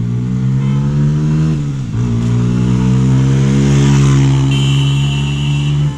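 Bajaj Pulsar N160's single-cylinder engine with stock exhaust accelerating hard past the camera, revs rising. It drops briefly about two seconds in at a gear change, then climbs again and is loudest as the bike passes, about four seconds in.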